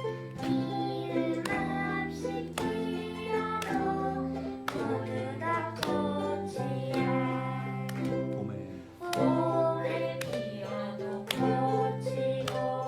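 Ukulele ensemble playing live: strummed chords with a held melody line over them.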